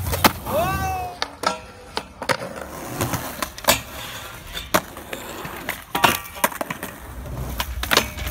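Skateboard on a concrete skatepark: urethane wheels rolling, sharp clacks of the board popping and landing, and the board sliding along a metal handrail.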